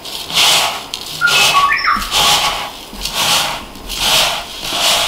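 Hands rubbing and tossing dry crushed chips and breadcrumbs together in a small bowl: a gritty rustle in regular strokes about once a second. A brief whistle-like squeak sounds between one and two seconds in.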